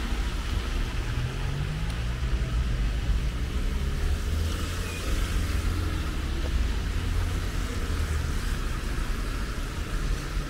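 Street traffic in heavy rain: a low, steady rumble of car engines under the even hiss of rain on the wet road.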